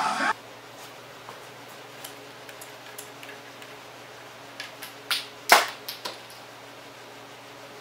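A few light clicks and knocks as a glass measuring cup is handled against the priming port of a small gas-engine centrifugal water pump before priming it, the loudest knock about halfway through. Under them runs a faint steady hum; the pump's engine is not running.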